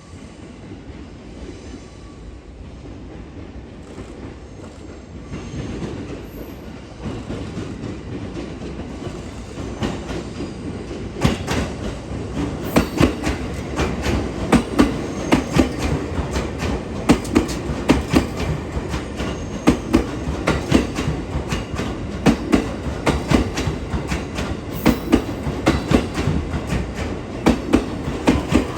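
JR East 255 series electric train running on the rails: a low rumble that grows louder over the first ten seconds or so, then a steady run of wheel clicks over the rail joints.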